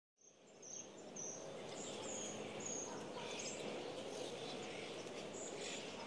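Faint outdoor park ambience: a steady background hiss with a few short high-pitched chirps in the first three seconds.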